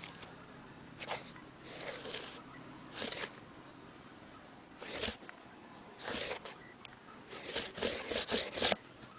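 Short bursts of scratchy rustling close to the microphone, a few seconds apart at first, then a quick run of them near the end.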